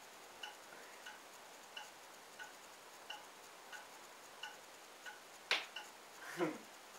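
A clock ticking steadily, about three ticks every two seconds, each tick with a faint ringing tone. About five and a half seconds in comes a single sharp knock, followed by a brief voice sound.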